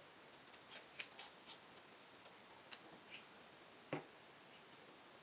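A few light clicks of a spoon against a bowl, then a single knock about four seconds in as a plastic bottle is set down on a wooden table.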